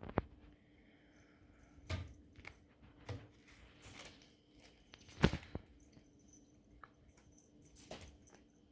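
Scattered taps and thumps of a cat playing with a ball, the sharpest and loudest a little after five seconds in.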